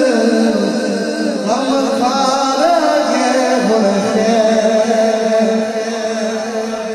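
A man singing a Punjabi naat into a handheld microphone, drawing out long held notes that bend up and down in pitch.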